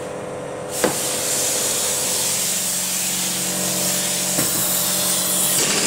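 Aerosol degreaser can spraying in a long steady hiss, starting about a second in with a short break near the end.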